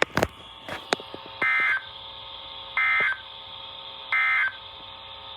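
NOAA Weather Radio SAME end-of-message data signal: three identical short, buzzy digital bursts about 1.4 s apart, marking the end of the warning broadcast. A couple of sharp clicks come before the first burst.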